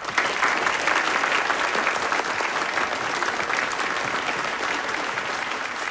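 Audience applauding a stage introduction, a steady dense clapping that eases a little toward the end.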